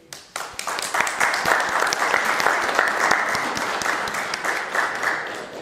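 Audience clapping: a few scattered claps at first, thickening into steady applause about a second in, then dying away near the end.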